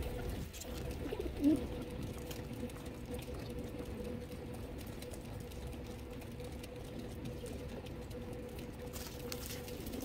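A flock of rock pigeons feeding close together. One bird gives a loud coo about a second and a half in, over faint clicks of beaks pecking grain and a faint steady hum.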